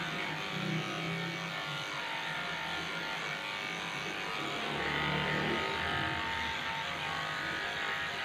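Cordless electric dog clipper running steadily while shaving a shih-tzu puppy's fur, a little louder about five seconds in.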